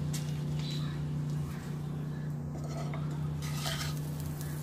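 Wooden spatula scraping a knob of butter around a non-stick frying pan as the butter melts, with a few strokes near the start and again near the end, over a steady low hum.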